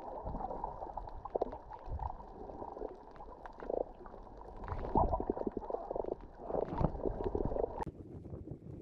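Muffled underwater sound picked up by a GoPro in its waterproof housing on the sea floor: a low rumbling and gurgling with scattered clicks and knocks. It changes to a thinner hiss about a second before the end.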